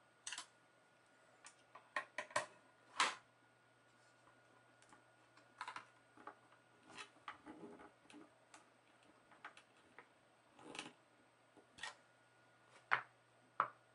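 Small screwdriver and screws clicking and scraping against the metal frame of an opened Mac Mini as screws are driven back in, in irregular sharp clicks with pauses between, a few of them louder.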